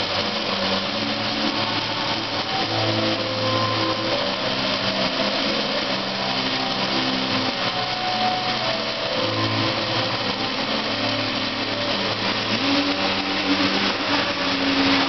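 Arc welding on steel: the steady crackling hiss of the welding arc, running without a break.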